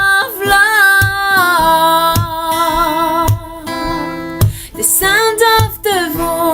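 A song: a voice singing long held, wavering notes over acoustic guitar.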